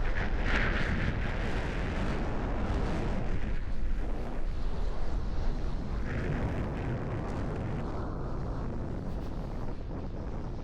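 Strong wind buffeting the microphone in gusts, a heavy rumble that swells and eases, easing slightly toward the end.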